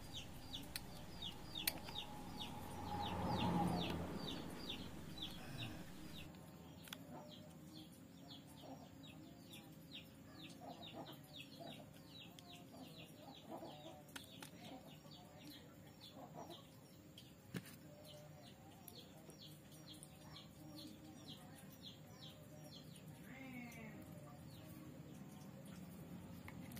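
Faint bird calls: a steady run of short, high chirps, with a louder, lower call about three to four seconds in. A few faint clicks stand out.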